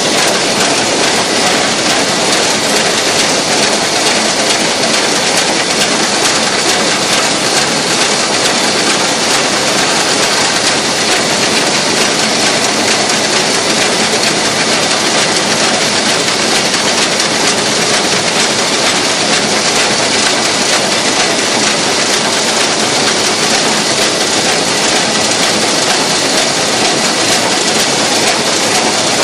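Narrow-gauge steam locomotive running along the line, heard from inside its cab: a steady, loud, even din of the moving engine and train.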